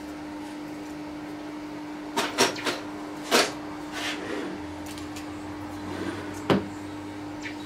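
Sharp metal clunks and knocks from hands working at a metal lathe's headstock, over a steady hum. There is a quick run of three about two seconds in, another shortly after, and a last one near the end.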